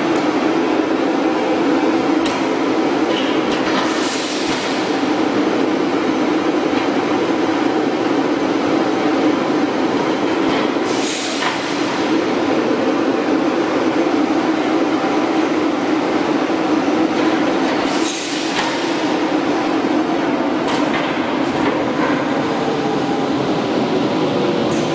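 Welded steel tube roll forming mill line running: a loud, steady mechanical drone, broken three times by a short high hissing burst about seven seconds apart.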